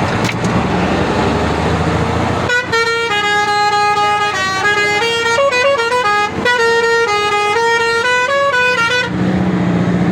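A bus's musical horn playing a tune of stepped notes for about six seconds, starting about two and a half seconds in, over steady vehicle noise.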